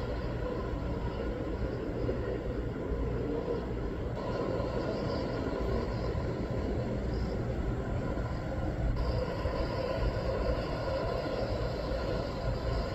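Steady rumble of aircraft engines on the runway during landing rollout, its tone shifting slightly at cuts about 4 and 9 seconds in.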